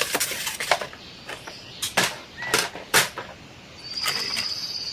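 Clear plastic packaging bag crinkling and crackling as it is handled, with several sharp crackles. Near the end a thin high steady tone sounds for about a second.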